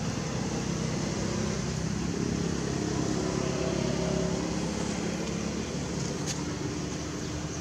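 Steady low outdoor background rumble with a faint hum, with one faint click about six seconds in.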